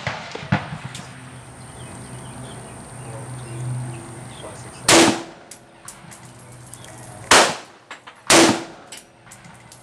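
Three rifle shots from an AR-15 in 5.56 NATO: one about five seconds in, then two more about a second apart near the end. Each has a short echoing tail, with fainter sharp cracks in between.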